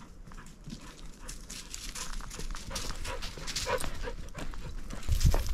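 An Australian shepherd moves close to the microphone while footsteps crunch on dry leaves and rocky ground in a string of quick crackles. A loud low rumble comes in near the end.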